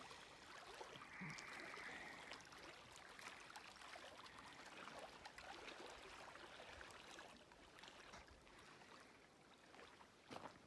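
Faint lapping of small wind-driven waves against a rocky lake shoreline, a steady soft wash that drops lower in the second half.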